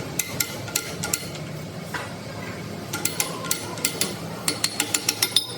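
Irregular sharp metal-on-metal taps with a short ring, a few at first, then quickening near the end.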